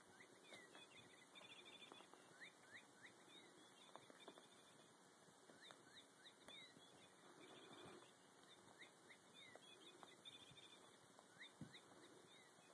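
Near silence: faint soft taps and rustles of a cat playing with a small fabric toy on carpet, with faint high chirps repeating throughout.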